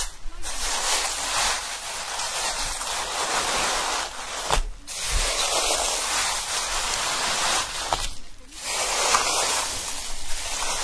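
Steady rushing water noise, swelling and easing, with two short drop-outs partway through.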